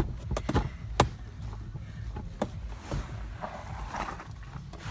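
Several sharp plastic clicks and knocks as a car's centre console is worked back into place, over a steady low hum.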